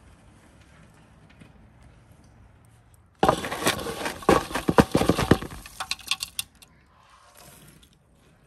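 A metal shovel scooping lumps of charcoal embers out of a metal basin. About three seconds in comes a dense run of scraping and clinking lasting about three seconds, as the coals knock against the shovel and the basin, then it stops.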